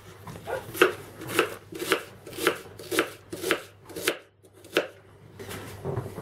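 Kitchen knife slicing an onion into half-rings on a wooden cutting board, about two cuts a second, each stroke knocking on the board. The cutting stops a little before the end.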